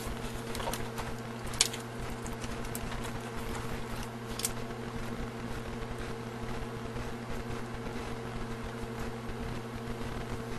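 Steady low electrical hum and room noise, with a few faint clicks from handling the box, one a little sharper about a second and a half in.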